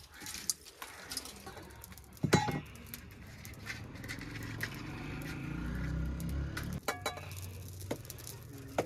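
Clinks of dishes or pots with a sharp knock, and a low engine-like hum that swells for a few seconds and then cuts off suddenly.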